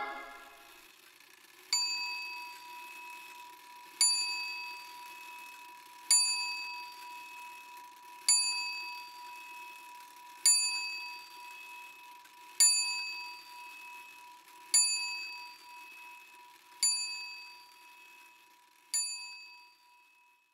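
A small bell chime struck about every two seconds, nine times, each strike ringing out and fading before the next, over a faint steady hum.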